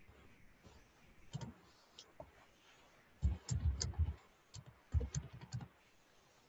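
Computer keyboard typing: a couple of single keystrokes, then two quick runs of key presses about a second long each, a string of digits being entered.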